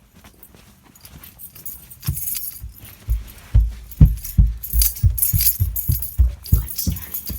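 Quick footsteps thumping up stairs at about three steps a second, starting about two seconds in, with a light jingling at each step.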